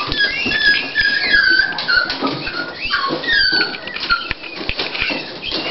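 Miniature Pinscher whelping: many short, high-pitched whimpering squeaks, mostly falling in pitch, over rustling of the fleece blanket she is lying on.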